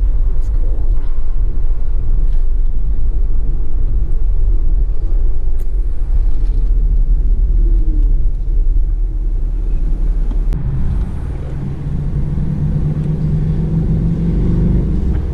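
Low road rumble inside a moving car. About ten seconds in, the rumble drops away as the car slows to a stop, leaving a steady hum.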